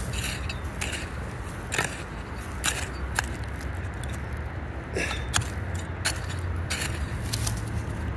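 Metal digging tool scraping and chopping into gravelly rubble soil, about nine irregular strokes, over a steady low hum.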